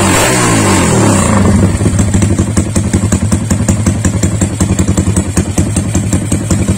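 Yamaha LC135's single-cylinder four-stroke engine, freshly rebuilt with a 66 mm piston and running through a YY Pang exhaust with a 28 mm header, blipped up and down a few times and then settling about a second in into a steady, pulsing idle. The carburettor is not yet tuned.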